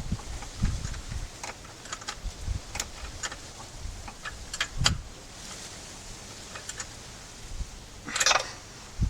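Scattered small clicks and light metallic ticks from hand tools and parts being handled during ignition coil fitting on a motorcycle, with a couple of dull thumps and a short rustle near the end.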